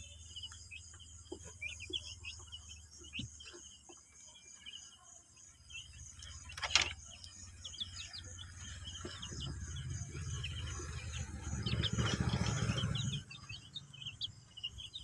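Young chickens peeping in short high chirps throughout, over a steady trill of crickets. A sharp knock comes about seven seconds in, and a low rumbling noise builds from about nine seconds and stops suddenly near thirteen.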